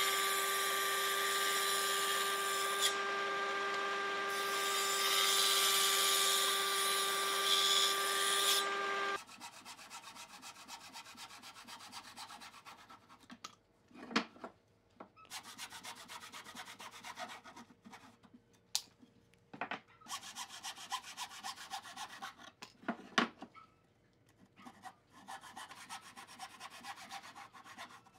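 An electric disc sander running with a board pressed against its disc: a steady motor hum under the grinding of wood. It stops abruptly about nine seconds in. Then a handsaw cuts thin boards in runs of quick strokes, with a few sharp knocks of wood between the runs.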